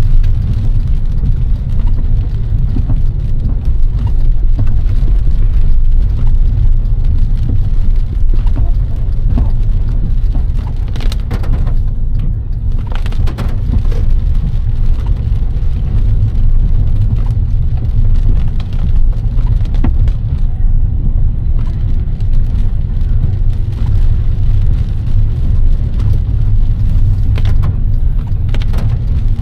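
Inside a car driving in heavy rain: a steady low rumble from the car and the wet road, with rain hitting the windshield. A few short knocks come around the middle and again near the end.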